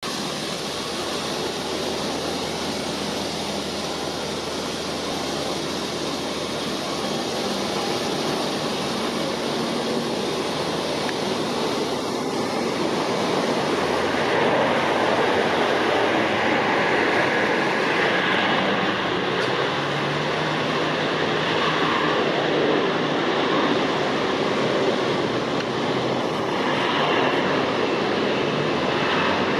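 Airbus A320-232 jet engines (IAE V2500 turbofans) landing: a steady roar through final approach and the runway roll-out that grows louder about halfway through, after touchdown.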